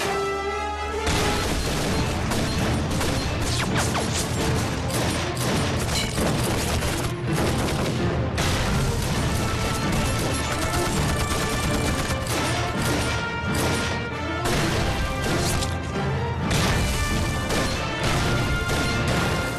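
Movie battle sound effects: rapid gunfire and explosions with crashing debris, mixed over a dramatic music score.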